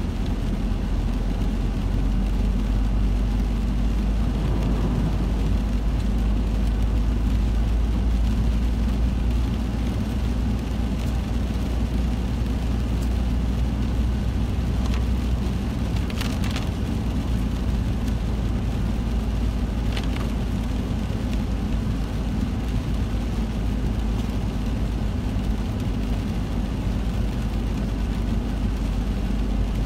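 Car driving on a wet road, heard from inside the cabin: a steady low hum of engine and tyre noise, with a few brief ticks about halfway through.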